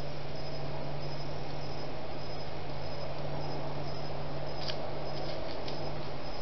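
Crickets chirping at night in short, evenly repeated high pulses, over the heavy steady hiss and low hum of a trail camera's microphone. A couple of soft clicks come in the second half.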